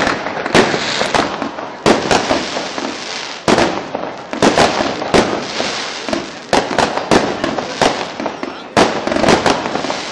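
Fireworks display: a steady run of sharp bangs from bursting fireworks, about two a second, each trailing off into a noisy decay that runs into the next.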